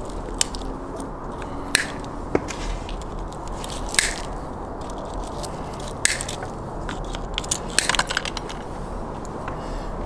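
Wire cutters snipping and pulling steel binding wire off a roasted whole lamb: about six sharp snaps a second or two apart, with scraping of the wire, over a steady low background hum.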